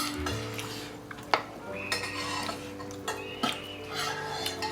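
Metal cutlery clinking and scraping against dishes during a meal, with a few sharp clicks.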